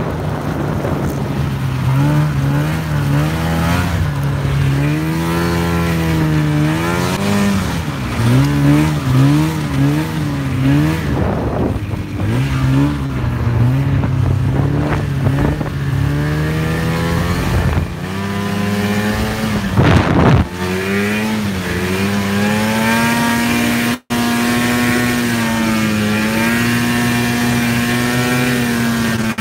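Bombardier snowmobile engine running under throttle, its pitch rising and falling again and again as the throttle is worked, then holding steady at high revs near the end, with wind rushing over the microphone.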